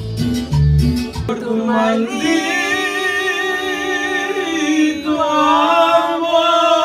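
A man singing karaoke into a microphone, holding long, wavering notes. A Latin backing track with a steady beat runs under the first second, then its beat drops out.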